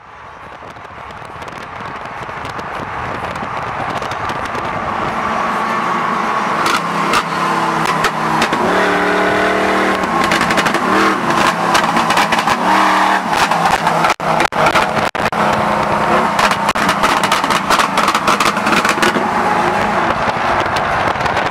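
Freeway traffic noise heard from a moving vehicle at highway speed, fading up over the first few seconds, with a rapid crackle from about six seconds on. Between about nine and thirteen seconds a vehicle's engine note rises and holds.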